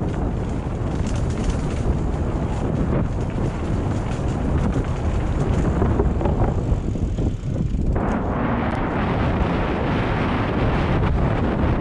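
Wind rushing over a helmet-mounted camera's microphone as a mountain bike descends a trail at speed, with the tyres rolling over dirt and gravel. About eight seconds in the noise suddenly turns harsher and brighter.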